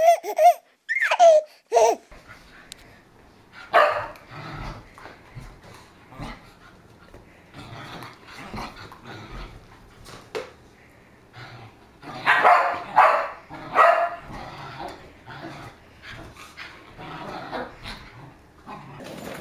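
Dogs barking and growling at play as they chase a balloon, with the loudest barks about four seconds in and a run of them around twelve to fourteen seconds. A few short sliding tones open it.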